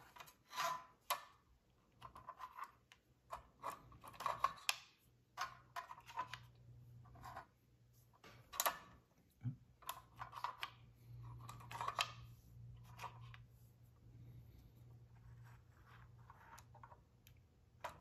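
Light clicks and taps of small aluminium fidget-toy parts being handled and set down, scattered throughout, with a faint low hum in the background during the second half.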